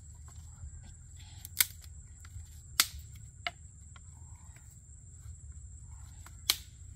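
Dry sticks knocking and clacking together as they are stacked into a fire lay over mud-packed fish, with a few sharp clacks, the loudest near the middle and one near the end.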